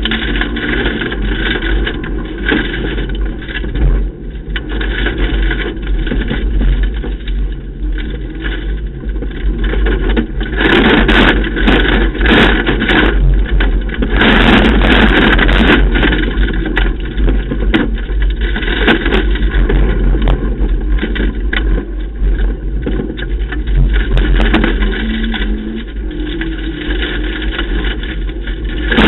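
Ford KA rally car at speed on a gravel stage, heard from inside the cabin: the engine working hard under constant road and tyre noise, with a louder, rougher stretch from about ten to sixteen seconds in.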